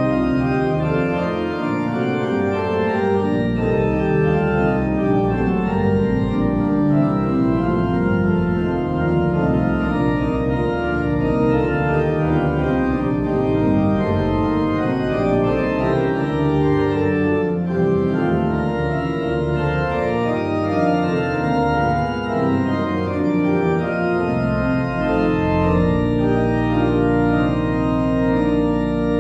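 Church organ playing a full-textured passage of sustained chords with a moving line. Near the end a low held pedal bass note comes in.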